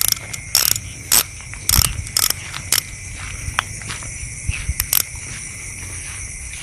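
Footsteps crunching on dry ground, about two steps a second, that stop about three seconds in, with two more steps near the end. Under them runs a steady high chorus of crickets and other insects.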